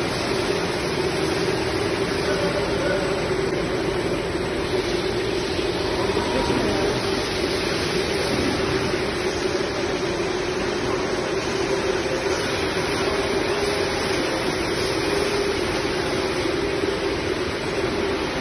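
Paper towel production-line machinery running: conveyors and a roll-packaging machine making a steady drone with a constant hum.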